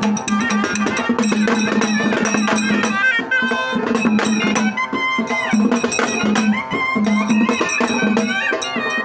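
Traditional folk music: a barrel drum played with stick and hand, a second stick-beaten drum and small hand cymbals keep a fast, steady beat, with a gliding melody line above them.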